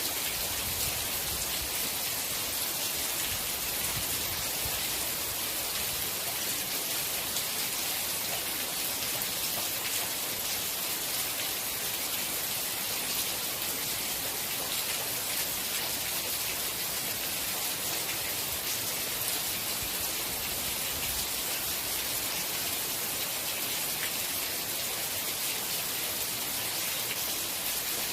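Steady rain falling, a dense even hiss with many small drops pattering on a surface.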